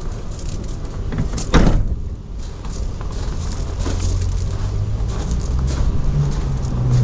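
A van cab door swung shut with a single solid slam about a second and a half in, followed by a steady low rumble of background noise.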